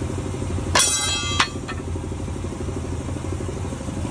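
Engine idling steadily with an even low rumble. About a second in, a loud ringing tone sounds for about half a second and ends in a sharp click.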